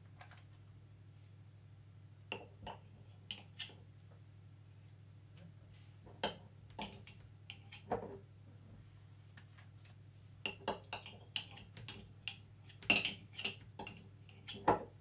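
A metal teaspoon clinking and scraping against a glass jam jar as raspberry jam is scooped out and dropped onto the batter, in irregular clusters of light taps that are busiest near the end. A faint steady low hum lies underneath.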